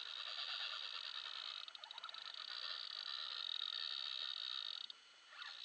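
Fishing reel buzzing steadily while a hooked barbel bends the rod, cutting off about five seconds in.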